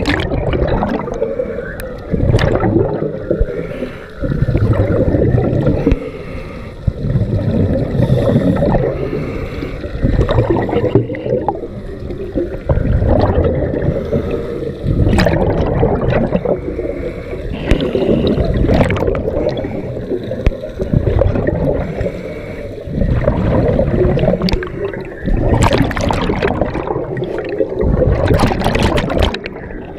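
Scuba diver breathing through a regulator underwater: each exhalation sends out a gurgling burst of bubbles, about every two to four seconds, with quieter gaps between.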